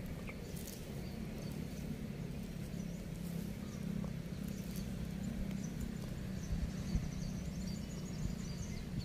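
Outdoor ambience: a steady low rumble with faint high chirping and ticking.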